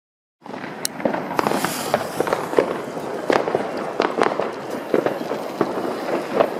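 Fireworks and firecrackers going off all around: a continuous crackle and rumble of many distant explosions, with sharp louder bangs every second or so. It starts abruptly about half a second in.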